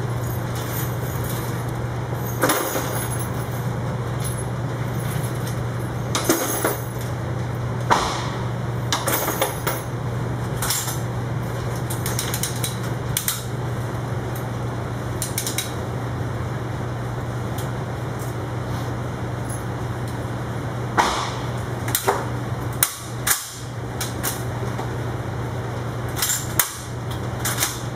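Indoor shooting range background: a steady low hum with scattered, irregular sharp knocks and cracks.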